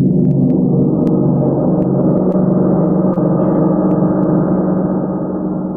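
A large hanging gong played with a mallet, ringing loud in a dense wash of many steady overtones. The sound holds level, then begins to die away near the end.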